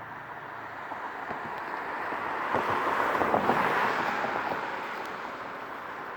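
A vehicle passing by: its noise swells to a peak midway and fades away again.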